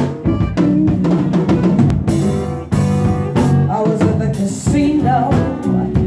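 A live band playing: drum kit with bass guitar, a man and a woman singing into microphones, and a cymbal crash about two seconds in.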